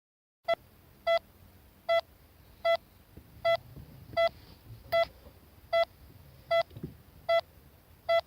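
Heart monitor (electrocardiogram) beeping in a steady rhythm, a short high beep about every three-quarters of a second, roughly 78 a minute: a regular heartbeat. A faint low hum runs beneath the beeps.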